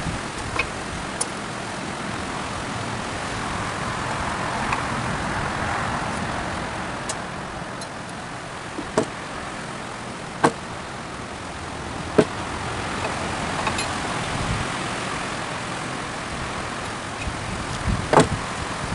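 Steady outdoor background noise, like distant road traffic, with a handful of short sharp knocks and clicks: a steel bevel square and pencil being set down and tapped against a pressure-treated pine beam while marking it out.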